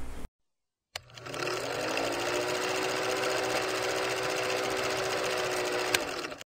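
Film-projector sound effect under a countdown leader: after a brief silence, the projector motor spins up with a rising hum and then runs with a fast, steady clatter. There is a single click near the end, and then it cuts off suddenly.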